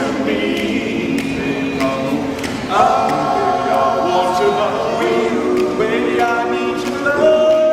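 A cappella vocal group singing held close-harmony chords that change every second or so, with a fuller chord coming in about three seconds in, over a light clicking beat.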